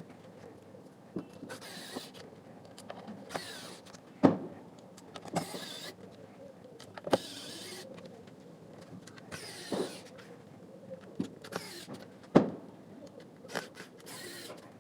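Reassembly of a small portable Bluetooth speaker: parts of its housing clicking and knocking into place, with short scraping or whirring sounds every second or two as screws are driven back in.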